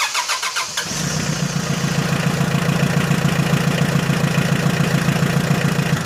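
A Mitsubishi 4D56 four-cylinder diesel is cranked by its starter for about a second, catches, and runs at a steady idle. It runs with a pulsing knock typical of a diesel started on lighter fluid sprayed into the intake.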